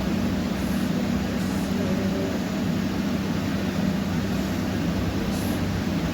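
Electric arc welding on stainless steel: a steady sizzling crackle from the electrode's arc over a low, even hum.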